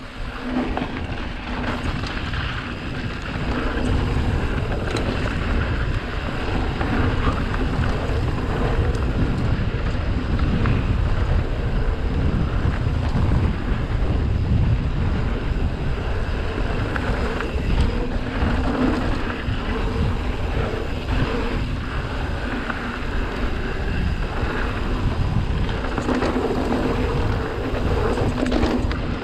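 Wind buffeting a GoPro's microphone on a mountain bike ride, over the rumble of the tyres on the trail. The noise is steady and heaviest in the lows.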